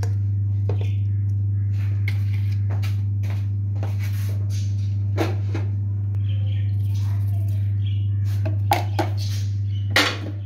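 A steady low hum under scattered soft clicks and knocks as raw mutton pieces are set into a metal pot of sliced onions and tomatoes. Sharper knocks come about nine seconds in and again near the end.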